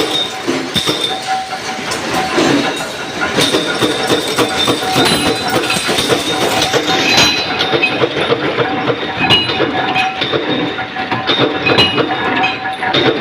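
Power press punching metal rings: continuous mechanical clatter with many sharp metallic clicks and clinks, over a steady machine whine.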